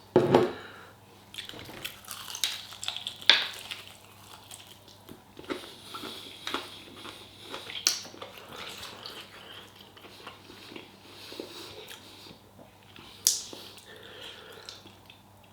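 A person chewing a mouthful of chicken coated in hot sauce, with scattered small mouth and handling clicks and a few sharper knocks.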